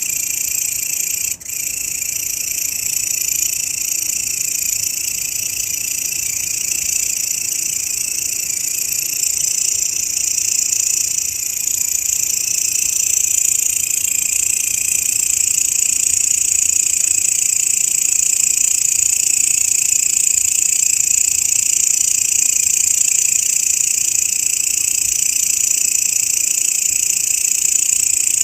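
Grasshopper stridulating: a continuous, high-pitched, dense buzzing trill with a brief break about a second and a half in, growing slightly louder over time.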